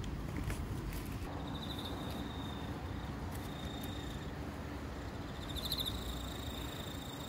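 A high-pitched insect trilling in three bouts, the last and loudest beginning past the middle, over a steady low outdoor hum.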